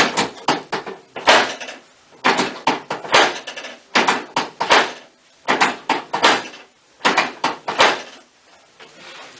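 Short knocks and rustles from a chiropractic adjustment on the treatment table, coming in quick clusters of two or three, about once a second.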